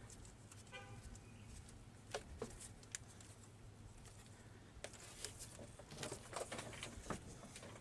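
Scattered light clicks and knocks of hand tools as a new spark plug is threaded in by hand and tightened in the engine, with a brief squeak about a second in.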